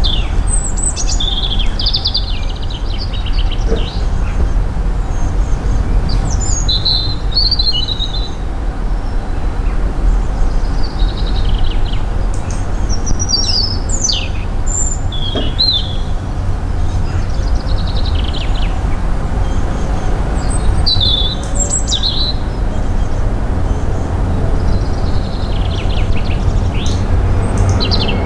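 Garden songbirds chirping in short, quick phrases every two or three seconds over a steady low rumble.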